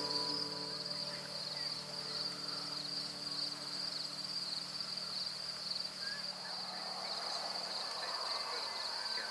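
Evening insect chorus: a steady, high-pitched, gently pulsing trill, with a few faint bird chirps in the second half. A closing musical note dies away over the first couple of seconds.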